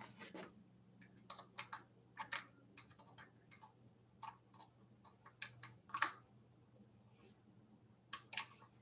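Faint, irregular clicks and light taps of a hand tool and small metal parts as hardware is fitted at the front fork and wheel of an e-bike being assembled.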